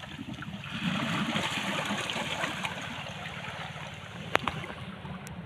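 Steady wash of sea water over rocks at the shoreline, with a single sharp tap about four seconds in.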